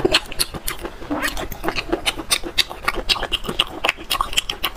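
Close-miked wet eating sounds of sea snails being pulled apart and sucked from the shell: sticky smacking and sucking with many short wet clicks.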